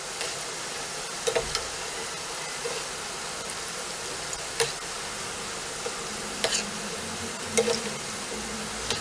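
Moong dal pakodas deep-frying in hot oil, a steady sizzle, with a few sharp clinks as a metal spoon turns them in the pan.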